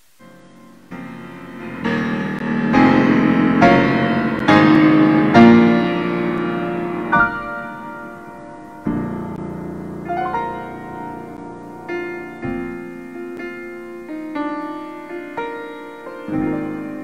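Solo grand piano, a Yamaha, playing a slow piece: full chords swell to the loudest passage in the first few seconds, then the playing eases into quieter, lighter phrases.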